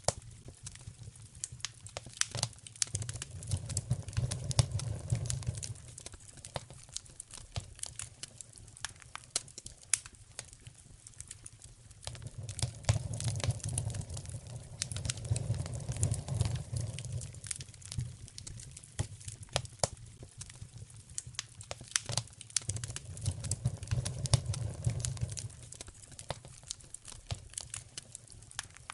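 Wood fire crackling in a fireplace, with many irregular sharp pops and snaps. A low rumble swells and fades three times, about four, fourteen and twenty-four seconds in.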